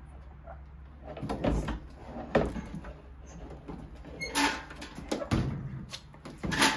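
Aixam Crossline microcar's tailgate being worked loose and lifted off its hinges by hand: a string of irregular knocks and clunks, the loudest about two and a half seconds in, over a steady low hum.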